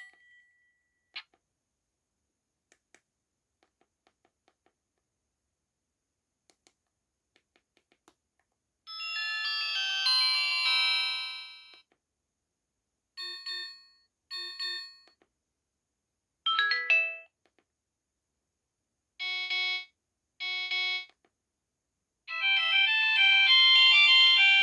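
HYKKER Classic mobile phone playing its built-in message alert tones and ringtones one after another. There is a brief click, a short melodic jingle, a double beep, a quick sweeping chirp and a two-note chime, each separated by a silent pause. A longer polyphonic ringtone melody starts near the end.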